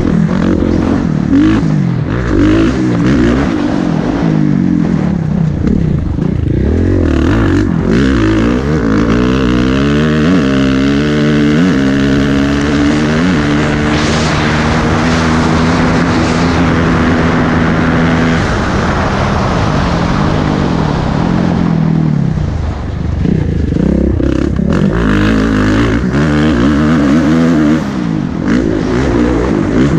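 Kawasaki four-stroke racing dirt bike engine heard from the rider's helmet. It revs hard and choppily over rough dirt, then climbs through the gears to a steady high-rpm pull with a rush of air about halfway through. It backs off and goes back to short bursts of throttle near the end.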